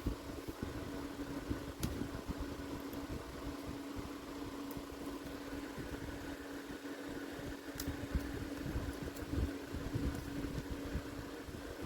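A steady machine hum with one constant low tone, and two sharp clicks about six seconds apart.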